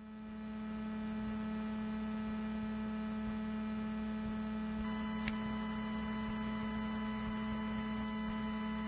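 Steady electrical mains hum with a faint buzz of higher overtones, which thickens a little past halfway, where a single faint click sounds.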